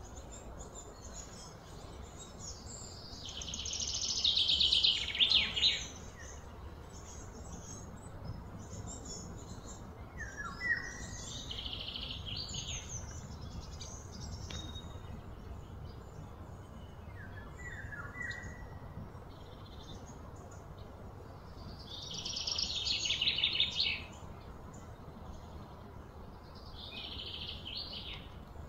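Birds chirping now and then with short falling calls. Twice a louder, rapid pulsing trill swells for two or three seconds and then stops, over a low steady rumble.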